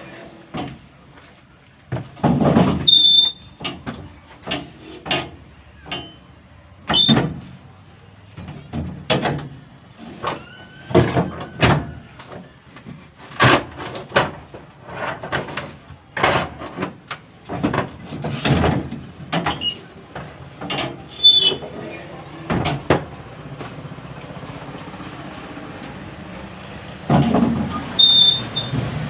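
Irregular knocks and clanks, with a few short high squeaks, from metal work on an ambulance seat. Near the end the knocks give way to a steadier noise.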